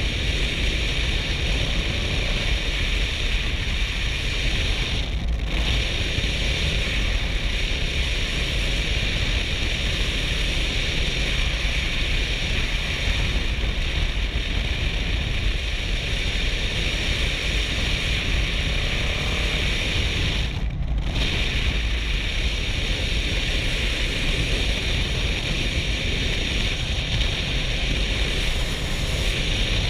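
Steady wind noise rushing over a helmet-mounted GoPro at road speed on a Kawasaki Versys 650 motorcycle, with the bike's parallel-twin engine running beneath it. The hiss drops out briefly twice, about five seconds in and again about two-thirds of the way through.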